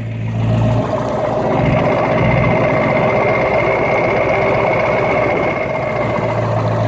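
Lifted Ford F-250 pickup's engine running steadily while driving through deep flood water, with a steady high whine over the low engine hum that fades out near the end.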